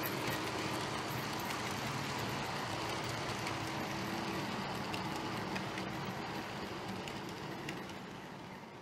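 Model railway container train running past on the track: a steady rolling rumble of wheels on rail with a faint motor hum, fading away near the end.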